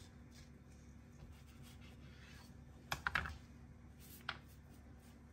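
Knife cutting through a hazelnut-topped cake on a wooden board: faint crunches, then a quick cluster of sharp clicks and knocks about three seconds in and a single click a second later.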